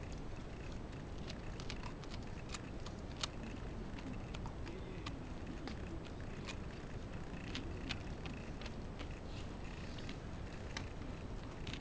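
A Shiba Inu gnawing a hard cowhide chew: irregular sharp clicks and cracks of teeth working on the chew, a few at a time with short gaps.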